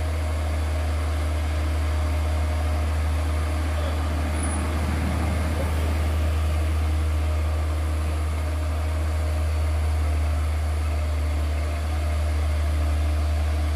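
Heavy cargo truck's diesel engine pulling slowly up a steep climb: a steady low drone.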